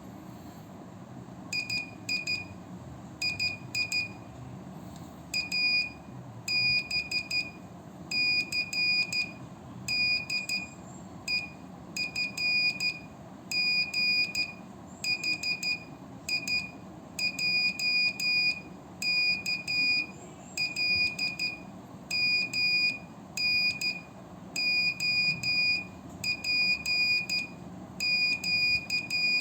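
Slow-speed Morse code: the high CW tone of a Pixie transceiver keyed on and off by hand with a straight key, short dots and long dashes grouped into characters with pauses between, starting about a second and a half in.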